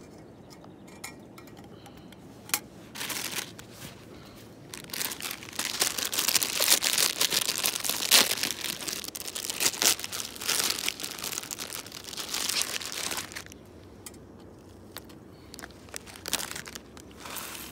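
Plastic instant-noodle packet being crinkled and torn open, in crackly bursts for about ten seconds.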